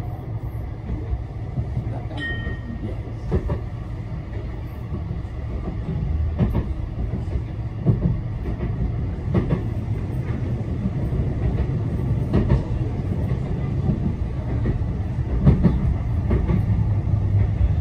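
Blackpool tram running along the track, heard from inside: a steady low rumble with regular knocks from the wheels roughly every second and a half. A short electronic beep sounds about two seconds in.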